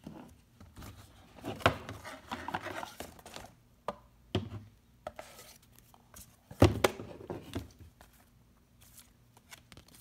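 Hands handling a stiff cardboard box and paper instruction leaflets: rustling with a few sharp knocks, the loudest about two-thirds of the way through.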